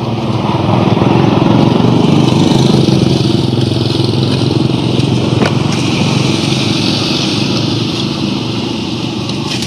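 A motor vehicle engine running past, growing louder about a second in and then slowly easing off.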